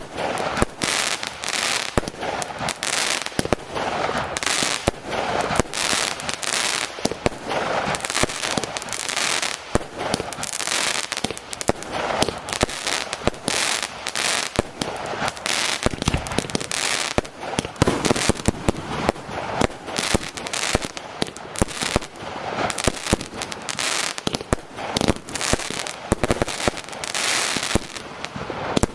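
A fireworks display: aerial shells launching and bursting in a rapid, unbroken string of sharp bangs, several a second.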